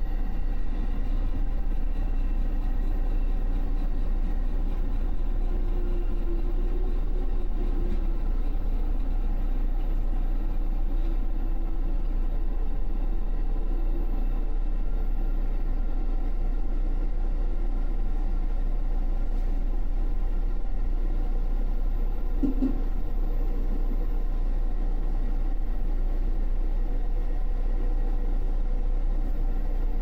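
Running noise inside an electric JR commuter train travelling at speed: a steady low rumble of the wheels on the rails with an even motor hum, and one brief tone about three quarters of the way through.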